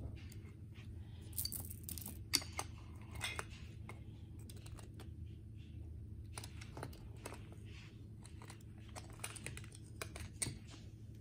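Wooden toy train track pieces and small toy cars clacking and knocking as they are handled, in irregular short clicks, a few louder than the rest, over a low steady hum.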